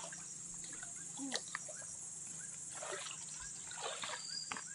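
Pond water sloshing and splashing around a person wading waist-deep and moving his arms through it, with a few separate splashes spread through. A steady high insect chirring runs underneath.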